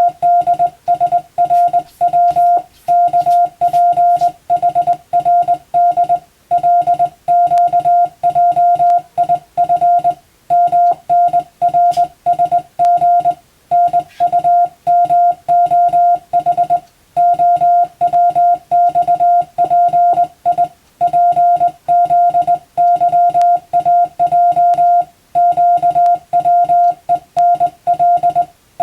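Morse code (CW) as a steady tone of about 700 Hz keyed on and off in dots and dashes, sent by an operator at a steady pace in letter and word groups with pauses of about a second between them. It is telegram practice text, as used for radiotelegraph exam receiving drills.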